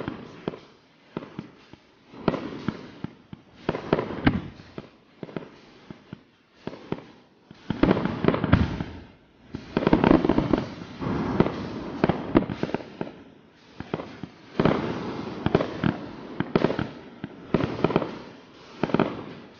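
Aerial fireworks shells bursting overhead: many sharp bangs and pops in quick succession, often overlapping, densest and loudest around the middle.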